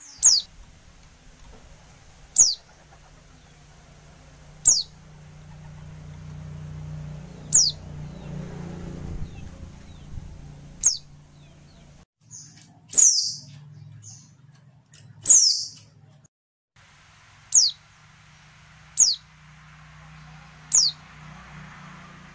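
Female white-eye (pleci) calling: short, thin, high notes that each slide downward, roughly one every two seconds, with two longer, louder calls near the middle. A faint low hum runs underneath.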